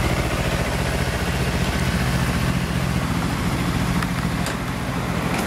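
Kawasaki Ninja 250R's parallel-twin engine idling steadily through an r's gear WYVERN aftermarket slip-on muffler, another motorcycle idling close by.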